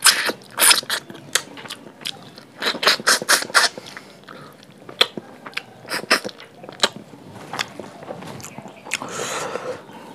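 Close-miked eating: crisp crunches and clicks of chewing, coming in quick clusters with short pauses between.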